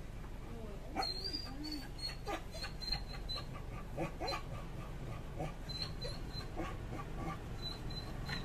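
Light clicks and knocks of microscope parts being handled and fitted together, with runs of short, high, repeated squeaks in the background.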